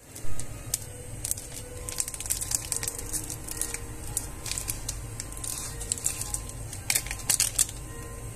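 Plastic ramen flakes sachet crinkling and tearing open, then crinkling in quick crackles as it is squeezed and shaken out. The crackles are loudest just after the start and again about seven seconds in.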